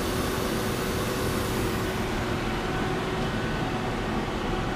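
Steady hum of powered-up machine-shop equipment, with a constant mid-pitched tone running through it. A high hiss fades out about two seconds in.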